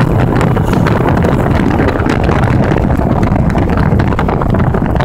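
Wind buffeting the microphone of a moving vehicle, with steady loud road and engine rumble underneath, as it drives alongside a freight train.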